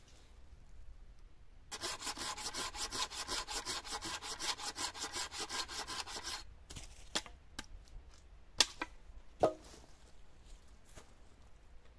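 Hand saw cutting through a small log in fast, even strokes for about four and a half seconds, then stopping. A few seconds later come two sharp knocks.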